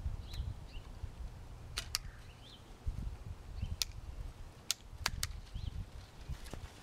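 Hand pruners snipping through thin woody shrub stems: several sharp separate snips, a couple of them in quick pairs, during a rejuvenation trim.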